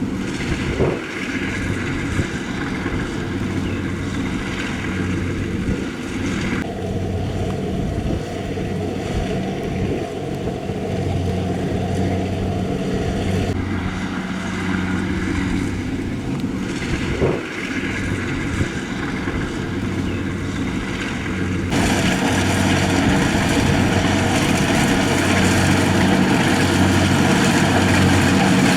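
Rice combine harvester's engine and machinery running steadily with a low engine hum. The higher-pitched mechanical noise shifts abruptly three times.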